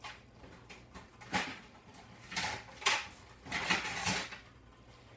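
An old metal plate clattering against a cooking pot as it is set on top for a lid: a handful of short knocks and scrapes spread over a few seconds.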